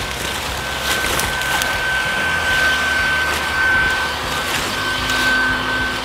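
Bee vacuum running steadily, its motor giving a steady high whine over a rush of air, as it draws bees off the branches. A few sharp ticks sound along with it.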